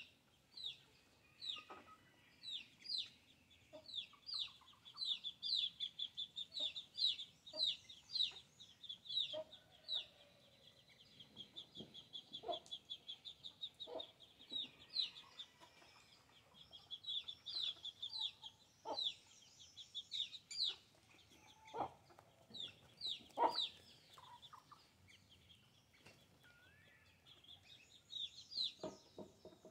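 Farmyard chickens clucking while they feed, over a long run of high, falling chirps repeated two or three times a second.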